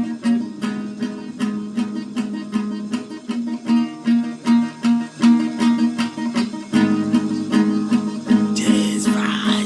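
Guitar playing a steady rhythmic strummed pattern of about four strokes a second, with a fuller, lower chord entering about two-thirds of the way in. Near the end, a bright, hissy wash is added on top.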